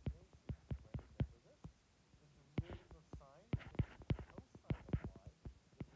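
Faint irregular clicks and soft knocks of a stylus tapping on a tablet's glass screen while handwriting, with a faint muffled voice in the background.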